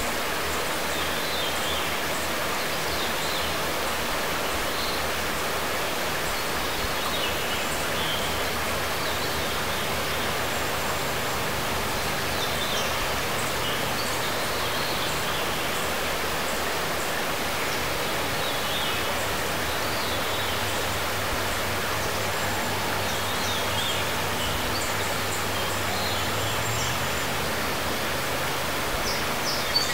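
Shallow river flowing over a stony, gravelly bed: a steady rush of water, with faint bird chirps now and then.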